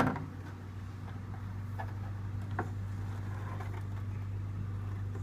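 Small 12-inch box fan with a little GE motor running with a steady low hum. A sharp knock at the start and a couple of light clicks come from the fan being handled.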